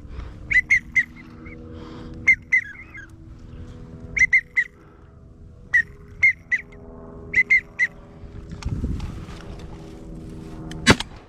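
Duck whistle call blown in quick groups of two and three short, high toots, the pintail and wigeon whistle used to call ducks in. A single shotgun shot cracks near the end.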